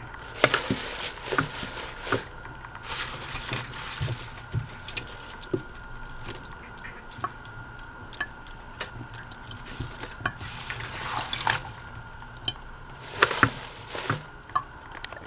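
Bitter melon leaves being washed by hand in water in a stainless steel sink: irregular splashes, drips and wet leaf handling, louder now and then.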